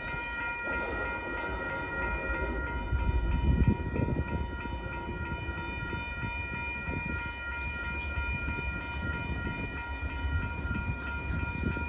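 Train running by with a low rumble and a chord of several steady high tones held throughout, swelling louder about three to four seconds in.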